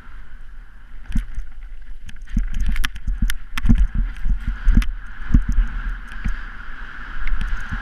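Snowboard descending a steep snow slope, heard through the rider's action camera: a steady rush of wind and snow on the microphone, with the board scraping over the snow and many sharp clicks and heavy thumps as it chatters over bumps.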